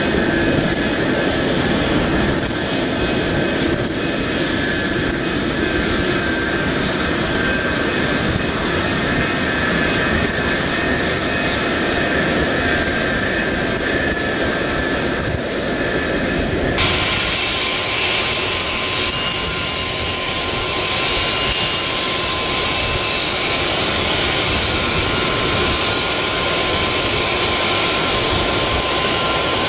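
Boeing 747 jet engines running at low power on the ground, a steady rumble and whine. About two-thirds of the way through the sound changes abruptly to a higher, thinner engine whine with steady tones.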